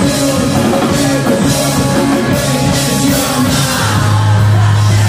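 A rock band playing live, loud, with drums, electric guitars and a singer; a low bass note comes in and holds near the end.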